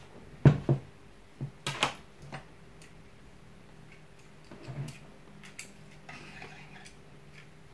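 Handling clicks and knocks as a ruler is set down on a table and a metal caliper is picked up and fitted around a small rotary grinder: a few sharp clicks in the first two seconds, the loudest, then fainter scattered ticks.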